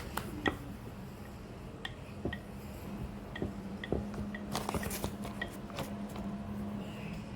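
Scattered light clicks and taps of hands handling shaped bread dough and a baking pan, with a denser cluster of taps about halfway through, over a low steady hum.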